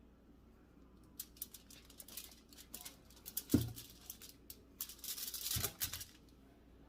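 Rustling, crinkling and clicking of hands handling things on a table while preparing to cut a cactus pear, with two dull knocks about halfway through and again near the end.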